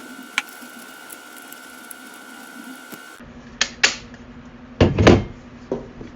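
Scattered light clicks and knocks from handling a plastic smoke alarm as it is being wiped clean. A few sharper knocks come near the end, the loudest about five seconds in.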